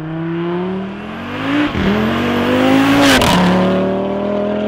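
Swapped-in Audi RS3 2.5 TFSI inline five-cylinder in a MK7 Golf R, on an aftermarket downpipe and midpipe exhaust, accelerating hard. Its note climbs in pitch and falls back twice, about one and a half and three seconds in, loudest around the second fall.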